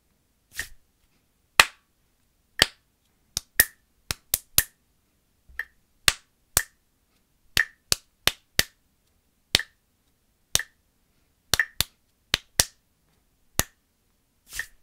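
Hand claps tracing a written rhythm with dotted notes, syncopation and triplets, uneven sharp claps falling between and on the beats of a metronome ticking about once a second.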